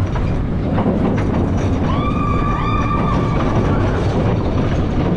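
Mine train roller coaster cars running along the track, a steady loud rumble with scattered knocks and clatter. About two seconds in, a high steady squeal with overtones rises briefly and holds for just over a second.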